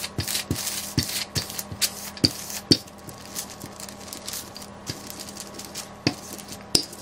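Wooden rolling pin rolled back and forth over parchment paper, flattening dough between the sheets: soft rubbing with irregular crinkles and clicks, thicker in the first three seconds and sparser after.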